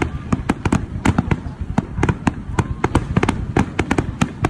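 Fireworks display, aerial shells bursting in a rapid irregular barrage of bangs and crackles, about four or five a second, over a low rumble.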